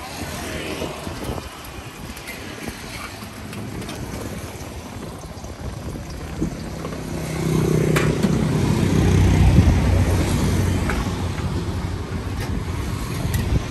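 A motor vehicle passing on the road: its engine hum builds from about halfway through, peaks, and fades near the end over steady street noise. A few short sharp clicks are heard, one louder near the middle.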